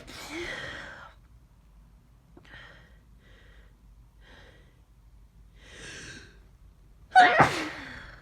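A person with a head cold sneezing. After a few short, catching breaths and a longer inhale, one loud sneeze comes near the end.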